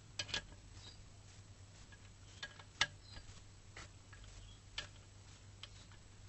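Faint, irregular metallic clicks and taps from hand tools working on the clutch pressure plate bolts, a pair near the start and then single clicks about a second apart. A low steady hum runs underneath.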